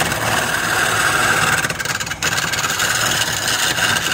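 Wood lathe running while a hand-held turning chisel cuts the spinning wooden blank: a steady cutting noise over the machine's running sound, with a brief dip about two seconds in.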